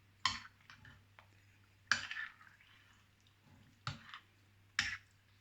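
A utensil clinking and scraping against a bowl while stirring beaten egg through chopped vegetables, with wet squishing. The strokes are irregular, about half a dozen, the loudest about two seconds in.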